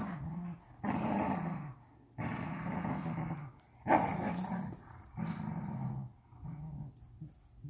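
Vizslas play-growling while tugging a plush toy. The growls come one after another, each about a second long with short pauses between them; the loudest is about four seconds in, and they get shorter and fainter towards the end.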